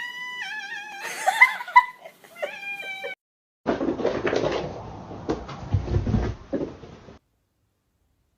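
Cat meowing in a run of drawn-out, wavering meows over about the first three seconds, answering a prompt to 'say yeah'. After a short gap comes a few seconds of noise with some knocks, then silence.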